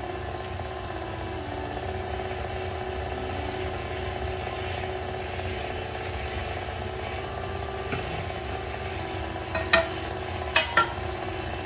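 KitchenAid Classic Plus stand mixer running steadily on a low speed, its wire whisk beating cake batter in the steel bowl with a constant motor hum. A few sharp clicks come near the end.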